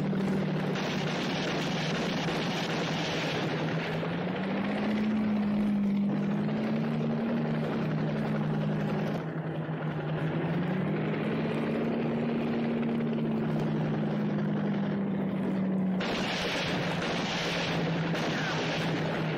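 Helicopter engine and rotor running steadily, a dense drone whose pitch glides slowly up and down now and then, its tone changing abruptly a few times.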